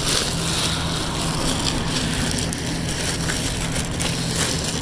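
Clear plastic wrapping crinkling and rustling as it is handled, over a steady low hum.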